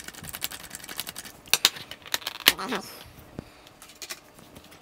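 Small sharp clicks and taps of a screwdriver and fingers working the screws and plastic bottom cover of a laptop, the loudest clicks about one and a half to two and a half seconds in, quieter after about three seconds.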